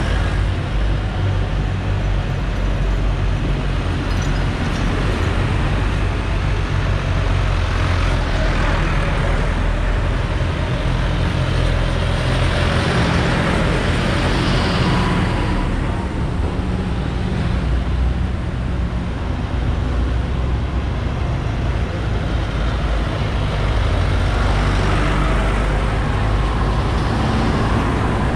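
Diesel engines of John Deere farm tractors running as they drive past in a line. The sound swells each time one passes close.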